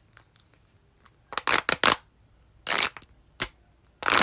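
Toy packaging being opened by hand: a few short, sharp snips or crinkles, three in quick succession about a second and a half in, then single ones a little later and near the end.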